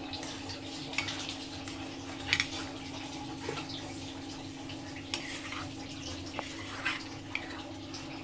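A metal ladle stirs watery gravy in a steel kadai: the liquid sloshes and the ladle scrapes and clinks against the pan at irregular moments, most sharply about a second in and again a little after two seconds. A steady low hum runs underneath.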